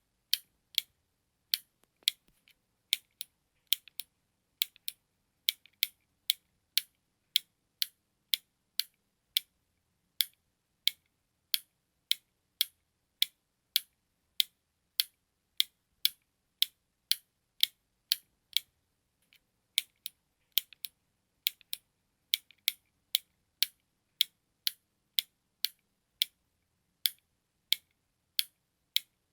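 Button clicking over and over: sharp, high, dry clicks about one and a half a second, in a steady tick-tock rhythm with a short break about two-thirds of the way through.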